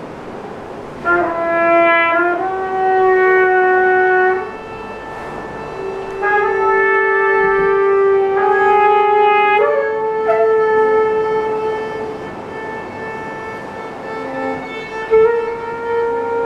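Live acoustic instruments, a bowed violin among them, playing slow, long held notes that move to a new pitch every couple of seconds, with a small upward slide near the start.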